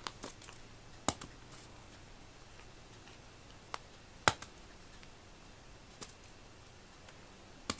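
Cat batting a small ball toy across a foam floor mat: five scattered sharp clicks and taps a second or two apart, the loudest about four seconds in.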